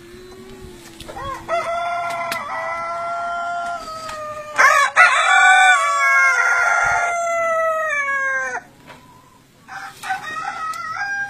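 Long-tailed aseel roosters crowing three times in long, drawn-out crows. The loudest crow, in the middle, lasts about four seconds, and the last begins near the end.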